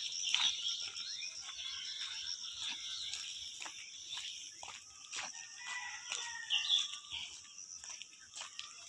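Footsteps of a person and a leashed dog walking on a gravel dirt path, heard as scattered short clicks over a steady high-pitched outdoor chorus, with a few brief bird calls in the middle.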